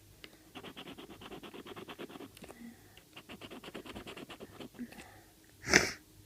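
A scratchcard's foil panel being rubbed off in quick rasping strokes, about nine a second, in two runs. Near the end there is a short, loud sniff from a stuffy nose.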